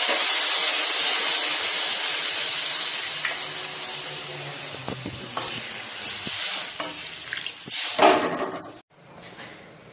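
Water poured into a hot kadai of oil-fried vegetables, hissing and sizzling loudly, the sizzle dying down over several seconds as the pan fills for the curry's gravy. A wooden spatula stirs and scrapes against the pan, with a louder scrape about eight seconds in, just before the sound cuts off.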